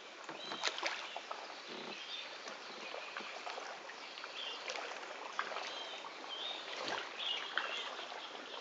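Water lapping and splashing around a small paddled boat, with scattered light clicks and knocks. Short high bird chirps come several times, more of them in the second half.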